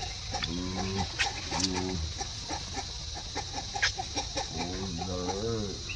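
Chickens clucking: a few short pitched calls, over a steady fast ticking.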